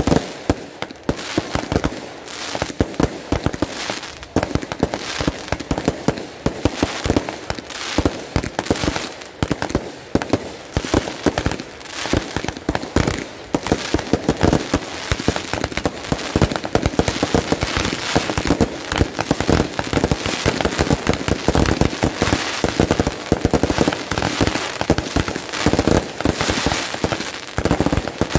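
Aerial fireworks going off in rapid succession: a dense run of bangs and crackling stars that thickens into near-continuous crackle in the second half.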